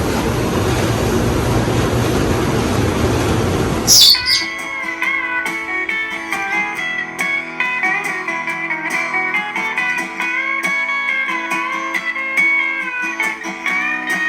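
A steady rushing noise cuts off about four seconds in with a sharp swish, and guitar music plays for the rest.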